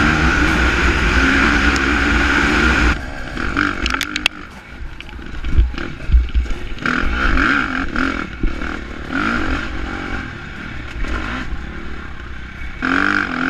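KTM 350 four-stroke dirt bike engine revving up and down as it rides a trail, recorded from the rider's helmet with wind buffeting the microphone. Loud and steady for the first three seconds, then dropping off and surging back in short bursts, with a few sharp clacks about four seconds in.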